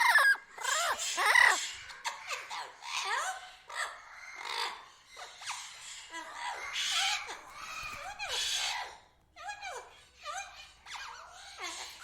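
Tropical birds calling, many overlapping chirps and short arching whistled notes, with a brief lull about nine seconds in.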